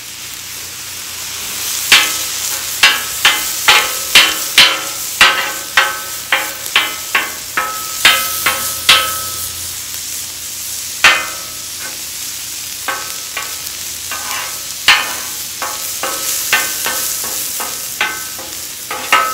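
Metal spatula chopping and clanking against a steel flat-top griddle while thinly sliced steak sizzles. Sharp ringing strikes come about two a second, pause briefly about halfway, then resume more sparsely.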